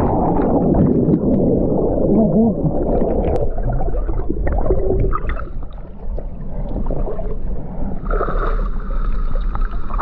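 Muffled underwater rush and gurgling bubbles, heard through a submerged camera just after a cannonball jump into a pool. From about six seconds in the camera is back above water and the sound turns brighter, with water splashing and running over rocks.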